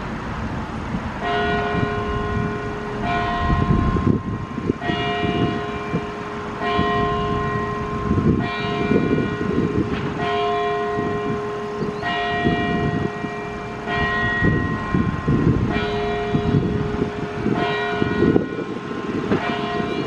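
Clock tower bell striking the hour. One bell is struck eleven times at an even pace, a stroke about every two seconds, each ringing on into the next.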